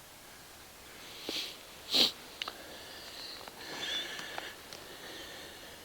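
A person sniffing sharply through the nose, twice, a little over a second in and again about two seconds in, followed by a few faint clicks.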